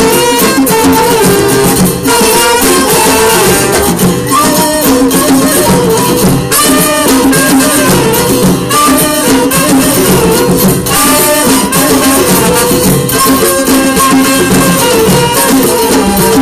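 Live band playing an Albanian folk song through a PA system, loud and continuous, with pitched melody lines over steady rhythmic percussion.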